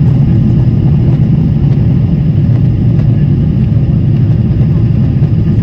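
Jet airliner engines heard from inside the cabin: a loud, steady low rumble without breaks.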